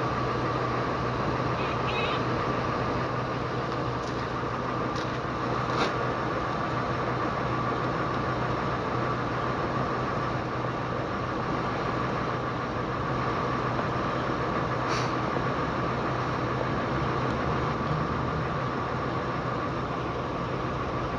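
Steady mechanical hum with a constant low drone and a thin whine over a background rush, typical of a vehicle running or traffic noise. A few faint ticks are heard about 5, 6 and 15 seconds in.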